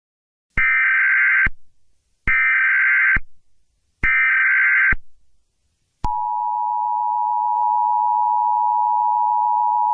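Emergency Alert System alert tones: three short, harsh digital SAME header bursts of about a second each, then about six seconds in the steady two-tone EAS attention signal (853 and 960 Hz) starts and holds.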